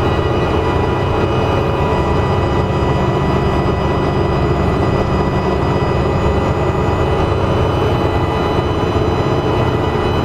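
Dennis Trident double-decker bus engine running under way, a low drone with a steady high-pitched turbocharger whine riding over it.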